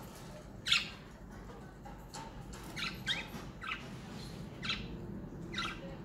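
Pet budgerigars giving a series of short, sharp chirps and squawks, about seven calls, the loudest one near the start.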